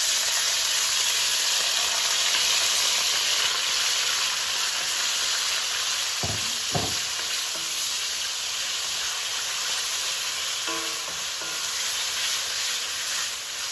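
Diced chicken thighs in sauce sizzling in a hot wok, just added and stirred with a wooden spatula. The steady sizzle eases a little toward the end.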